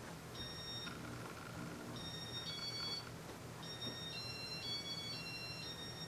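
Electronic beeps from a Casablanca ceiling fan's computerized control as it is put into demo mode: a short tune of steady tones, two pitches at a time, stepping up and down. There is one pair about half a second in, a run about two seconds in, and a longer run from about three and a half seconds on, over a low steady hum.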